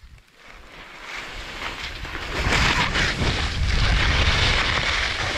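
Skis scraping and hissing across snow on a downhill run, with wind rumbling on the microphone. The rushing noise builds over the first two seconds and then stays loud.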